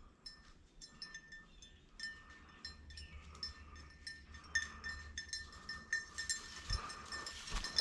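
Small bell on a bird dog's collar jingling in quick, irregular rings as the dog moves through the field. A rustle of brush grows louder over the last couple of seconds.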